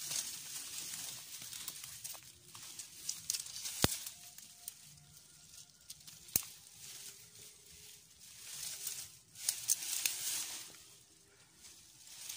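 Leaves and grass rustling as someone pushes slowly through dense undergrowth on foot, swelling and fading with the movement, with scattered light crackles and two sharp snaps about four and six seconds in.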